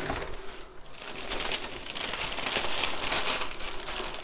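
Clear plastic wrapping crinkling and rustling as it is handled and pulled away from a gift in a box, busiest through the middle of the stretch.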